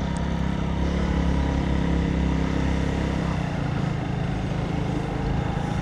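Motorcycle engine running steadily while riding along the road, with a steady hum and road noise.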